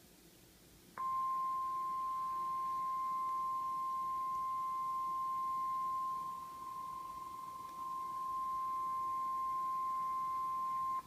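NOAA Weather Radio 1050 Hz warning alarm tone: a single steady electronic tone that comes on about a second in, holds for about ten seconds and cuts off sharply. It dips briefly quieter partway through. The tone signals that a warning message follows, here a severe thunderstorm warning.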